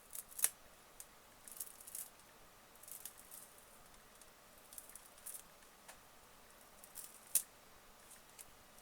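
Light clicks, taps and rustles of small tablet parts being handled: the removed touch panel glass and the plastic frame. A dozen or so scattered short clicks, the sharpest about half a second in and again near the end.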